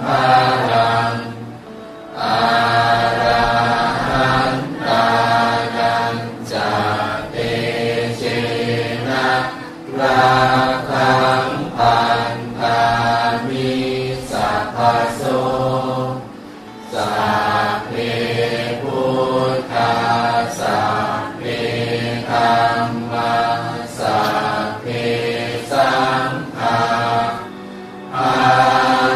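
Melodic Buddhist chanting by voices, sung in phrases of a second or two with brief pauses, the longest about two seconds in and again about sixteen seconds in.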